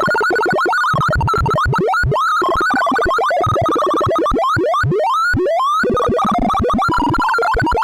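Sonified sorting algorithm from The Sound of Sorting: a fast, dense stream of short synthesized beeps whose pitch follows the values being compared, with several quick rising pitch sweeps among them.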